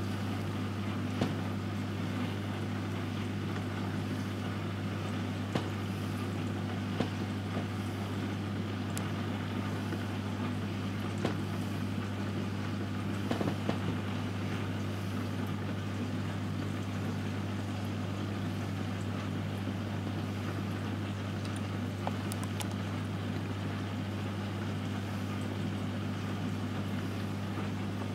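Reef aquarium equipment running: the pumps give a low, steady hum over a soft wash of moving water, with a few light clicks.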